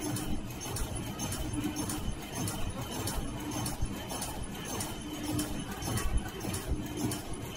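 Servo-driven three-ply flat face mask production line running at about 100 masks a minute: a rhythmic mechanical clatter of about two sharp clacks a second over a steady faint high whine.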